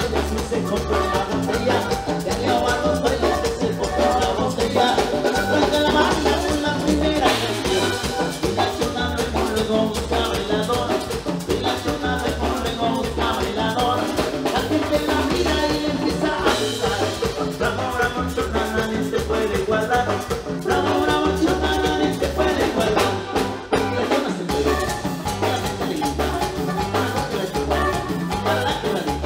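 Latin dance band music with a steady, evenly pulsing bass beat, loud and continuous.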